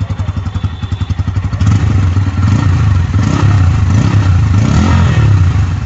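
Bajaj Pulsar N160's 165 cc single-cylinder engine heard at the exhaust muffler: it idles with even beats, then from about two seconds in runs louder, revved up and down a few times.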